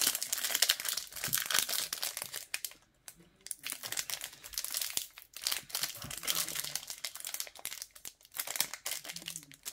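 Foil wrapper of a trading card pack crinkling and tearing as it is picked and ripped open by hand, in several bursts with brief pauses between; the wrapper is stubborn and hard to open.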